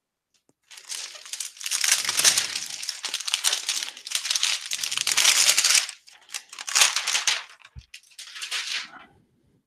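Crinkly plastic protective wrap on a new laptop crackling in bursts as the laptop is handled, with a short low knock near the end.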